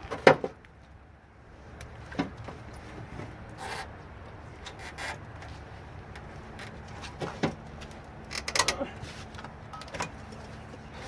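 Scattered knocks, clicks and clatter of plastic and metal parts of an old Sony CRT television being pried and handled during dismantling. There is a sharp knock just after the start, single knocks every second or two, and a short run of clattering about eight and a half seconds in.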